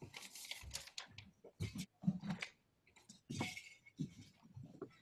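Faint, scattered rustling and handling noises with a few soft knocks, from people moving about and rummaging through things.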